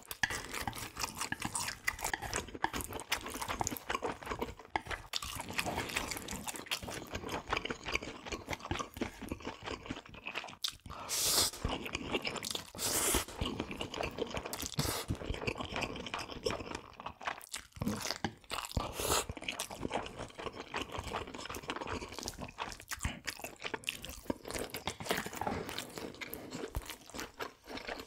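Close-miked chewing and crunching of food, with a few louder bites or slurps around the middle.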